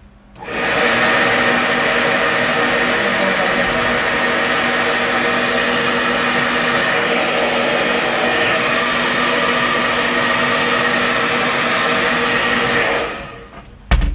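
Handheld hair dryer switched on about half a second in, blowing steadily with a whirring motor, then switched off near the end and winding down. A short thump follows just after.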